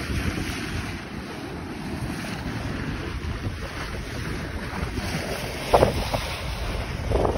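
Wind buffeting the microphone over the steady rush of sea water breaking past a sailboat's bow while under sail, with a short louder splash a little before six seconds in and another near the end.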